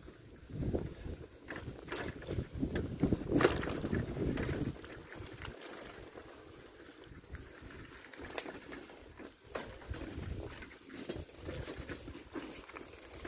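Footsteps on a paved path, heard as scattered short clicks, with low wind rumble on the microphone for the first few seconds that then dies down.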